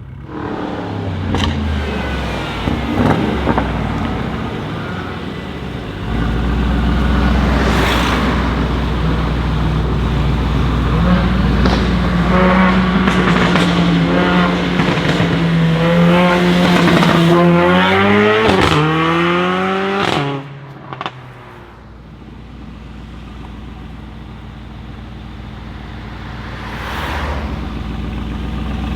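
Mercedes-AMG G63's twin-turbo V8 through an Akrapovic exhaust. It runs loud and steady for several seconds, then rises in pitch under acceleration and cuts off sharply about twenty seconds in, with a couple of sharp cracks. Afterwards it runs on more quietly.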